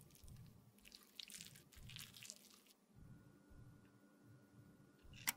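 Scraper drawn across a metal nail-stamping plate in several faint scraping strokes, followed near the end by a single sharp click.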